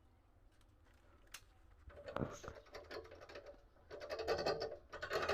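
Low room tone, then from about two seconds in a run of light clicks and clatter, as of small hard objects being handled.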